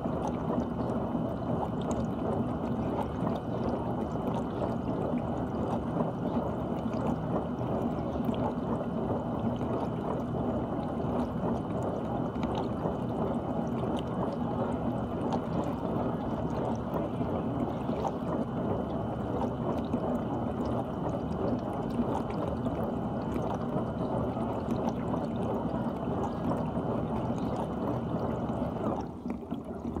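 GE dishwasher running its wash cycle: water sprays and sloshes steadily inside the tub, with a faint steady high whine from the pump. Both stop suddenly near the end.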